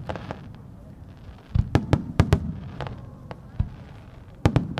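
Aerial firework shells bursting. After a quiet first second and a half comes a cluster of sharp booms with a rumbling echo, then a single boom, then a quick run of three more booms near the end.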